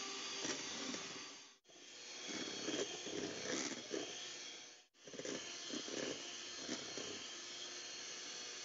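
Electric mixer running at high speed, its beaters whipping Swiss meringue toward stiff peaks in a steel bowl: a steady motor whine with a rougher churning from the beaters. It cuts out abruptly twice.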